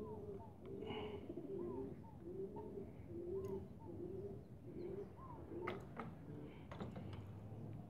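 Pigeons cooing in low notes repeated about every second, with a few sharp clicks a little after halfway through.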